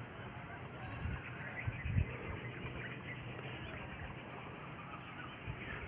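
Rural village outdoor ambience: scattered faint bird chirps over a steady background hiss, with a low thump about two seconds in.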